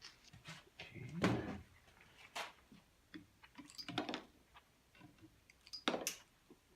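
A handful of separate metallic knocks and clanks from working a valve spring compressor on a small-block Chevy 350 cylinder head, compressing the valve springs to free the collets; the loudest knock comes a little over a second in.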